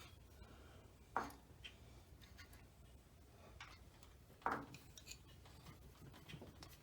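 Faint metallic clinks and ticks of hand tools against the engine as a stuck part is pried at, with two sharper clinks, one about a second in and one about four and a half seconds in.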